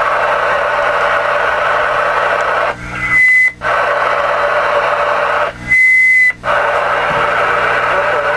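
CB radio receiver hissing with static and band noise. Twice the noise cuts out for under a second as a station keys up, each time with a short high-pitched beep.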